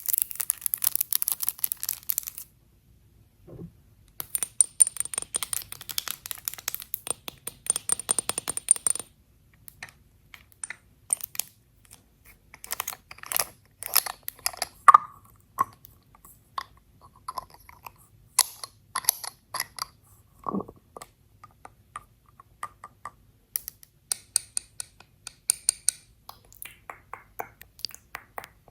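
Makeup products and their cases being tapped, clicked and handled close to the microphone for ASMR. Fast runs of light clicks give way after about nine seconds to scattered single taps, with a faint high ringing in the middle run.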